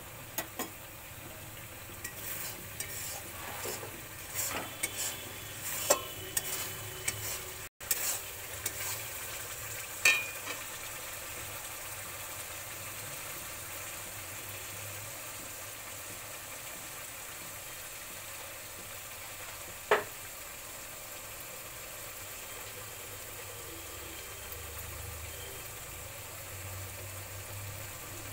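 Masala sizzling in oil in a metal wok (kadai), with a spatula scraping and tapping against the pan. There are several scrapes and taps in the first ten seconds, then mostly steady sizzling with one sharp tap about twenty seconds in.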